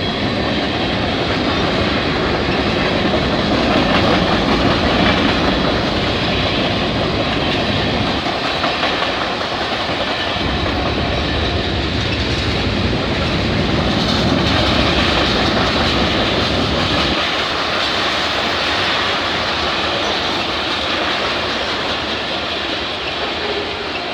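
CN freight train 397 rolling past at track side: its freight cars rumble and rattle, with wheels clicking over the rail joints. The sound is loud and steady, its low rumble growing heavier and easing off in stretches as different cars go by.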